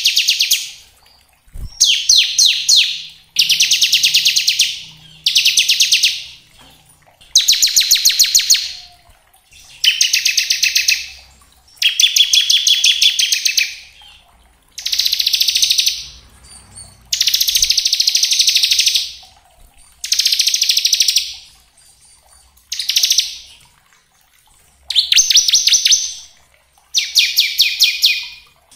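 Bar-winged prinia (ciblek) singing its 'ngebren' song: a string of fast, buzzy trills, each a second or two long. The trills repeat about every two seconds with short gaps between them, about a dozen in all.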